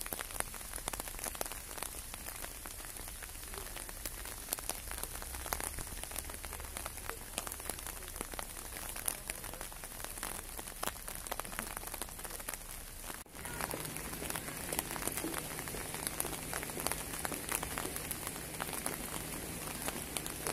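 Light rain pattering, with many separate drops ticking. After a cut about two-thirds of the way in, a faint steady low hum joins it.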